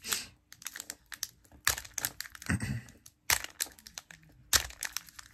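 Plastic wrapper of a trading-card pack crinkling and crackling in irregular bursts as fingers pick and pull at its crimped seal. The pack is stubborn and is not tearing open.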